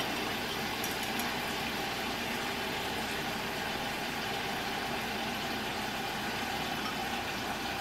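Steady, even background hum like an appliance or fan running, with a couple of faint clicks about a second in.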